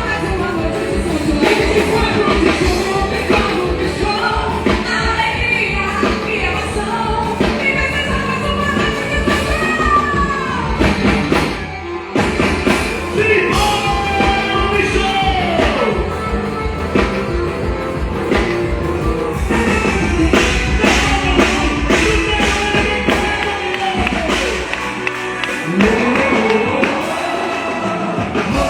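Loud live music: melody lines sung or played over a steady, dense drum beat. The drums drop out for a moment near the end.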